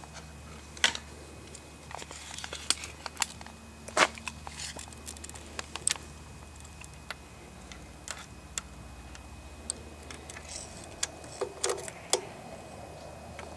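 Scattered, irregular clicks and light taps of hand and camera handling around an open amplifier chassis and a tape measure, over a steady low hum.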